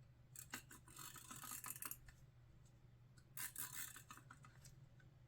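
Faint crisp scraping rustle of a sheet of vellum paper being handled and worked on a craft desk, in two spells: a longer one starting about half a second in, and a shorter one about three and a half seconds in.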